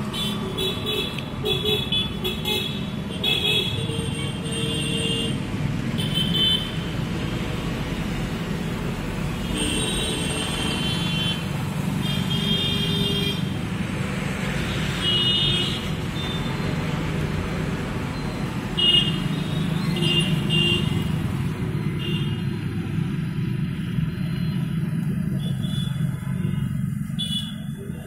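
Street traffic: passing motorbikes, scooters and auto-rickshaws under a steady low hum, with frequent short vehicle-horn toots.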